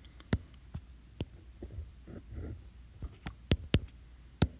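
Stylus tapping on a tablet's glass screen while drawing: a handful of sharp, light clicks, with a quick run of three a little past three seconds in, over a faint low hum.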